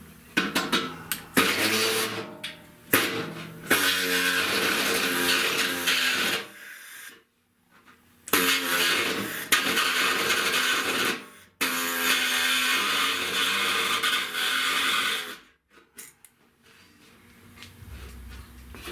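Small cut-off saw cutting sheet-metal body panel in repeated bursts, a high motor whine with a hissing grind, the longer runs lasting about three seconds with short pauses between.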